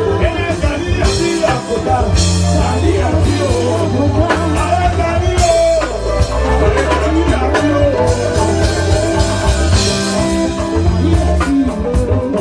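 Live band music played loud: a drum kit with regular cymbal strikes, a heavy bass line and voices singing over the band.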